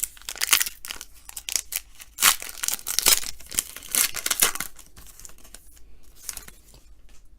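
A trading-card pack's wrapper being torn open and crinkled, a quick run of sharp rips and rustles that thins out after about five seconds.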